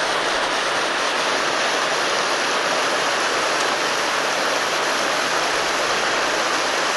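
Creek water pouring over a low concrete dam, a steady rushing noise.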